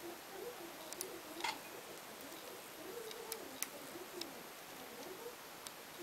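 A few faint clicks and ticks of the pulley bolt and a hex key against a Shimano Dura-Ace RD-7700 rear derailleur's cage as the bolt is threaded back in. Under them runs a faint wavering low tone.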